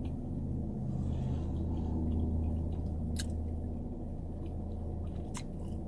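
Faint chewing and mouth sounds from someone eating a sandwich, over a steady low hum. Two sharp clicks come about three seconds in and near the end.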